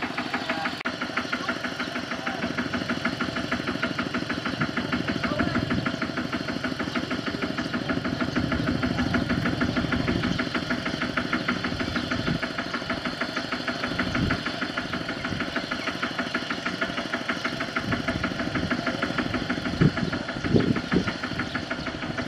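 Single-cylinder diesel engine of a two-wheel walking tractor running at idle with a fast, even beat. A couple of short thumps near the end.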